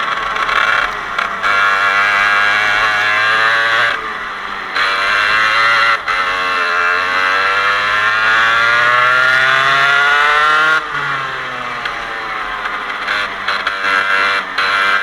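Racing kart's Parilla 125cc two-stroke engine running hard: a short lift about four seconds in, then a long rising wail as it accelerates for about six seconds. Near eleven seconds it comes off the throttle and the pitch drops, then it picks up again near the end.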